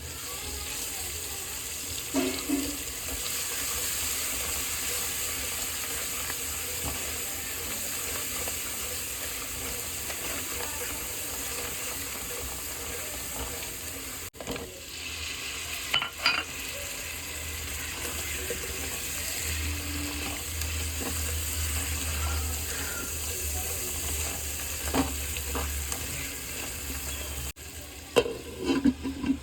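Food sizzling in hot oil in a pan, stirred with a spoon that knocks against the pan a few times. The sizzle breaks off briefly twice.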